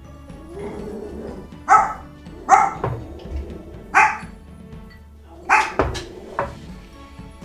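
Pet dogs barking: about six short, sharp barks at uneven intervals.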